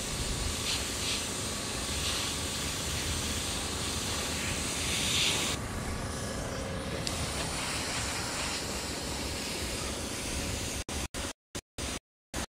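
Master Airbrush airbrush spraying black paint: a steady hiss of air over a low rumble, with stronger hiss surges as the trigger is pulled. The sound cuts out completely several times in quick succession near the end.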